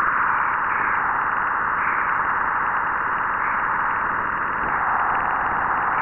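NASA Juno spacecraft's Waves instrument recording of trapped continuum radiation inside Jupiter's magnetopause, its electric-field signal converted to sound: a steady hiss with a few slight swells.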